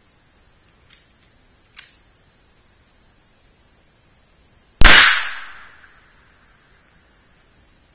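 A single shot from a Rock Island Armory 1911 pistol in 9mm: one sharp report about five seconds in, with about a second of echo fading out after it. Two faint clicks come a few seconds before the shot.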